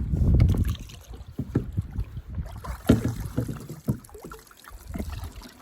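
Wind buffeting the microphone for about the first second, then small irregular knocks and splashes of water against a canoe hull.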